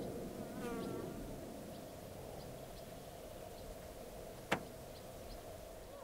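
Outdoor field-recording ambience of insects buzzing steadily, with faint scattered bird chirps. A brief wavering call comes about half a second in, and a single sharp click about four and a half seconds in.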